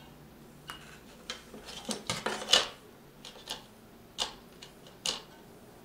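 Irregular plastic clicks and taps from handling a graphics card's triple-fan shroud, with a quick cluster of knocks about two seconds in and a few single clicks after.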